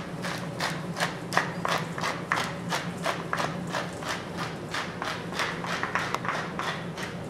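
Wooden pepper mill being twisted, grinding black peppercorns in an even rhythm of about three rasping strokes a second.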